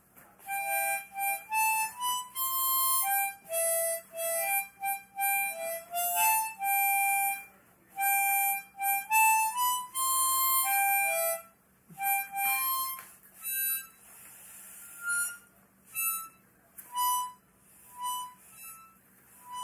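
Harmonica played solo: a slow, single-note melody of held notes in phrases. The playing grows softer and sparser about two-thirds of the way through.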